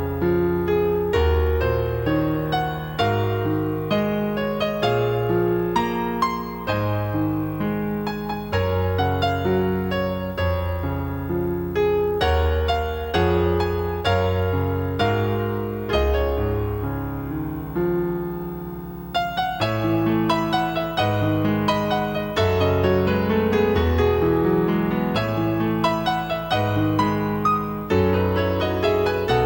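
Background music: a piano or electric-piano piece with a steady run of notes over a bass line.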